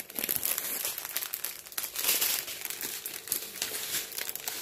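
Small plastic bags of diamond-painting rhinestones crinkling as they are handled, a dense run of short crackles.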